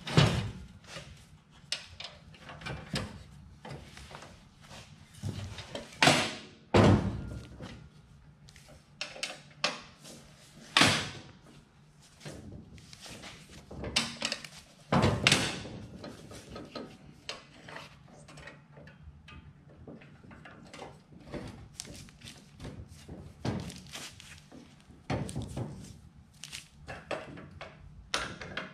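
Irregular clunks and knocks of a folding chop saw stand's metal frame and support arms being unfolded and handled on a steel work table. The heaviest knocks come right at the start and again at about 6, 11 and 15 seconds, with lighter clatter in between.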